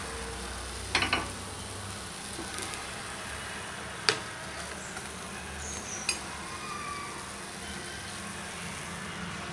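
Oil sizzling steadily in a cast-iron kuzhi paniyaram pan, with a skewer clicking against the pan and a bowl as the cooked paniyarams are lifted out: a few quick clinks about a second in, then single clicks at about four and six seconds.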